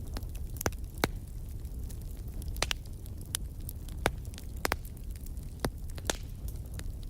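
Fire crackling: irregular sharp pops and snaps, one or two a second, over a steady low rumble of burning.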